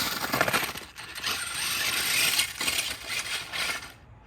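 Radio-controlled monster truck running hard: its motor and drivetrain whir and clatter in irregular surges, with knocks as the truck bounces and lands. The noise drops away briefly near the end.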